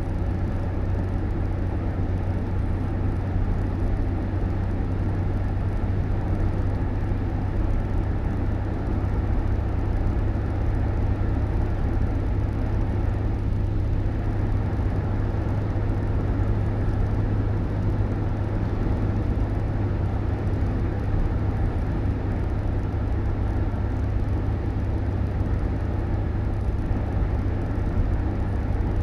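Steady low rumble of a moving vehicle, even and unbroken.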